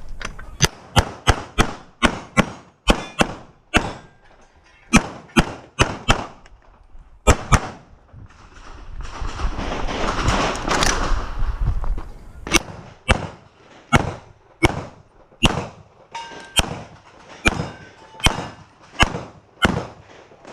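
CZ Shadow 2 9 mm pistol fired rapidly during a practical shooting stage, mostly in quick pairs about a third of a second apart. The shots stop for a few seconds midway, when a rushing noise takes over, and then start again.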